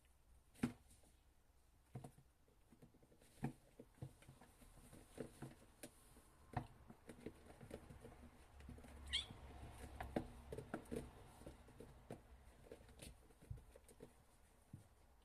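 Young kittens moving about: faint, scattered soft taps and knocks, with one brief high mew about nine seconds in.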